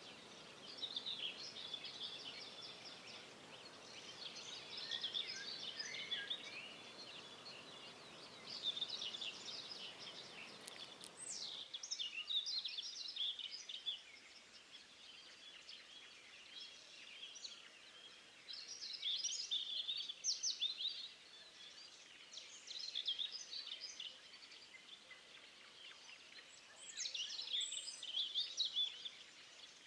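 Small songbirds chirping and trilling in bursts every few seconds, over a faint steady hiss that drops away about twelve seconds in.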